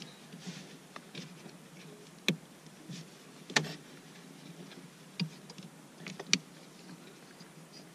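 Aluminium pedal cover being handled and worked onto a car's clutch pedal: faint rubbing with four sharp clicks and taps, the loudest about three and a half seconds in.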